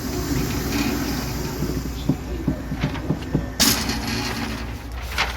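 Cartridges clicking one by one into a pistol magazine loaded by hand, five or six short clicks about two to three seconds in, followed by a sharper crack. A steady low hum runs underneath.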